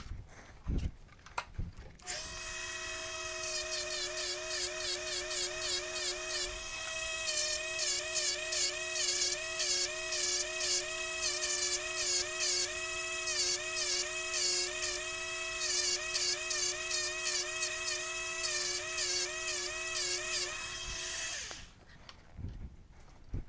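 Dremel rotary tool running at high speed, grinding down the rivets of a timing chain link; its whine dips in pitch over and over as it is pressed into the metal. It starts about two seconds in and stops near the end.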